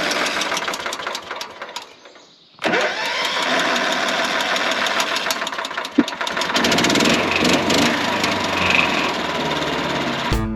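Wood-Mizer portable sawmill's engine running steadily. It drops away about two seconds in and comes back abruptly half a second later, with a sharp click a few seconds after that.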